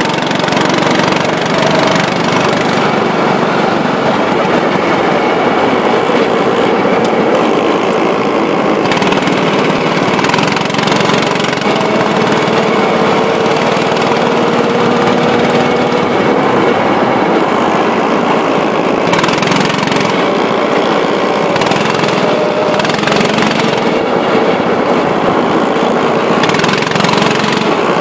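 Small go-kart engines running hard and continuously as the karts lap the track, the engine note rising gently at times.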